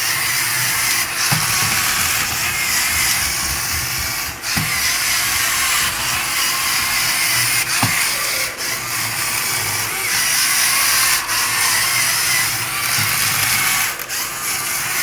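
Electric motors and plastic gears of a Lego Technic remote-controlled car whirring as it drives, with a wavering whine and a few sharp clicks.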